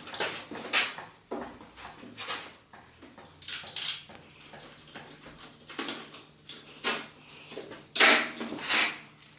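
Irregular clinks, scrapes and rustles of parts and tools being handled, with two louder scraping strokes near the end.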